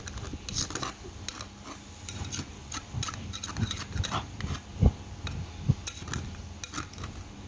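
A metal spoon scraping and knocking against the inside of a clay pot as rice is mixed: a run of irregular clinks and scrapes, the loudest knock about five seconds in.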